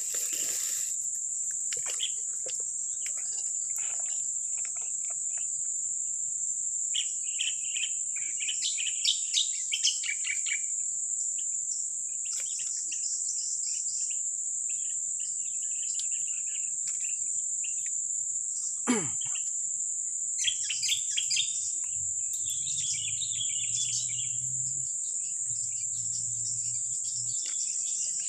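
Insects buzzing in a steady, high-pitched drone, with bird chirps coming in bursts. About two-thirds of the way through, one quick sweep falls sharply in pitch, and a faint low hum comes in near the end.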